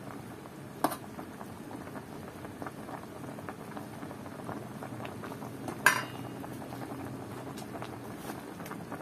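Pot of chicken feet and drumsticks simmering in dark palo braising broth, bubbling steadily, while a metal ladle stirs through it. The ladle clinks sharply against the metal pot twice, about a second in and again near six seconds, the second clink the louder.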